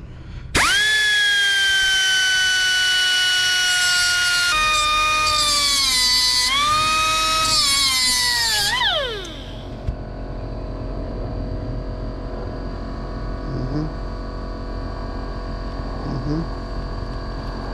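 Air die grinder spooling up to a high whine with a hiss of exhaust air and cutting into the fuel pump hanger's hard fuel line, its pitch sagging as the bit bites in. About nine seconds in, it winds down to a stop, leaving a steady low hum.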